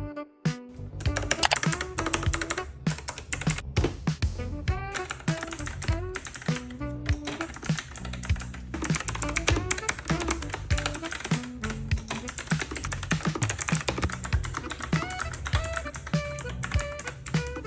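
Rapid, irregular clicky typing on a Yunzii QL75 mechanical keyboard with round typewriter-style keycaps, over background music.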